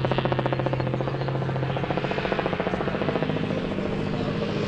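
Trophy truck engine running hard as the truck pulls away from the start. Its steady tone drops in pitch a couple of seconds in, under a rapid, even pulsing.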